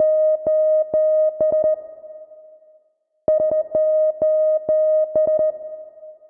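Electronic music: a synthesizer riff on one high note, chopped into quick staccato pulses, in phrases that repeat about every four seconds and fade out between them.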